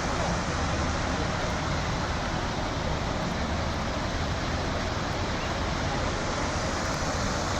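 Steady road and wind noise of a car driving at an even speed.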